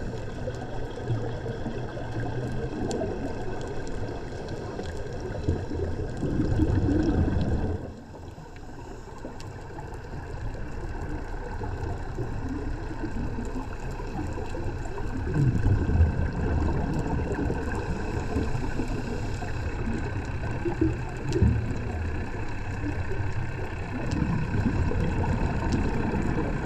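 Underwater sound through a camera housing: a steady low rumble with recurring surges of bubbling and gurgling from a scuba diver's exhalations, and faint scattered clicks.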